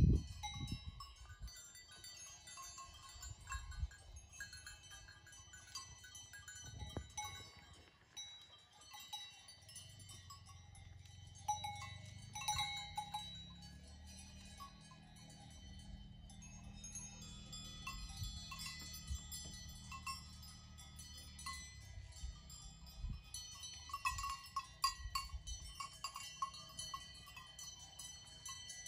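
Several livestock bells on grazing goats clink and ring irregularly, overlapping one another. There is a thump at the very start, and a low steady drone underneath for about twelve seconds in the middle.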